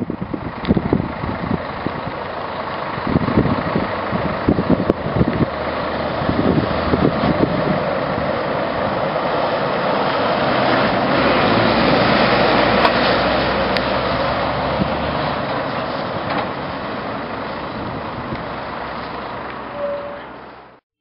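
Diesel engine of a Scania 114 fire engine with an aerial ladder pulling past close by, growing louder to a peak about halfway through and then fading. Wind buffets the microphone in the first few seconds.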